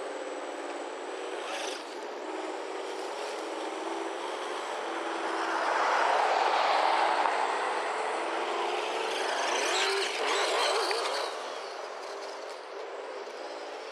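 Simulated engine sound from an RC sound kit playing through a single small speaker: a steady, thin engine note that shifts in pitch with throttle. A louder rush of noise swells about halfway through, with rising glides near the end.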